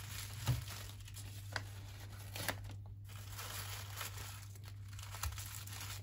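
Tissue paper rustling and crinkling in the hands, with a few faint clicks, while a sticker is peeled from its backing to seal the wrapped bundle.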